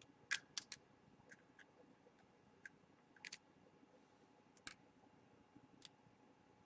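Light, sharp clicks and ticks of a small screwdriver working the tiny internal screws of an iPhone 4: a quick cluster in the first second, then single ticks every second or so.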